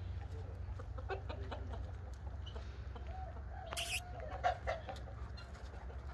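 A hen clucking, with a drawn-out wavering call about three to five seconds in. A sharp click comes just before the call.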